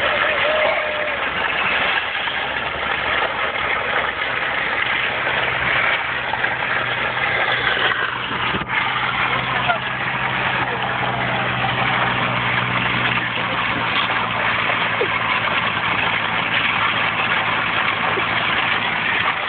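A towing vehicle's engine running at low speed, under a steady rough hiss of tyres and a wooden pallet being dragged over gravel. The low engine hum grows plainer about halfway through.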